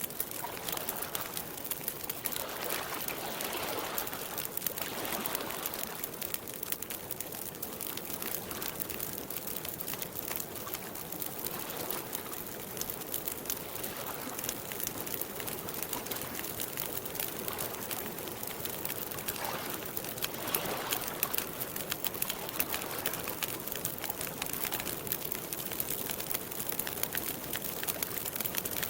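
Lake water lapping at the shore in gentle swells, with a campfire crackling in many small pops.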